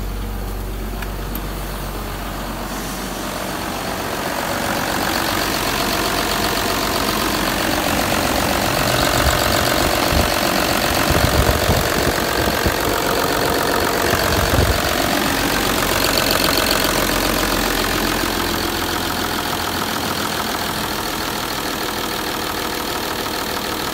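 VW 2.5 TDI V6 diesel engine (code BDH) running steadily at idle. It grows louder a few seconds in as the open engine bay is reached.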